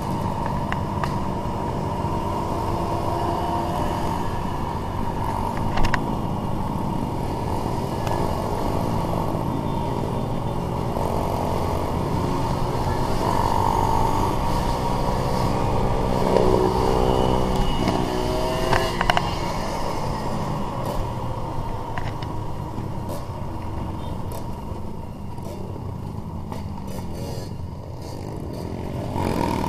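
Trail motorcycle engine running steadily while riding, with other trail bikes nearby; about two thirds of the way in, the engine note rises and falls briefly.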